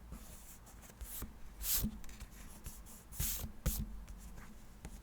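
Short scratchy strokes and light taps of paper and stationery being handled on a diary page, louder about two seconds in and again a little past three seconds.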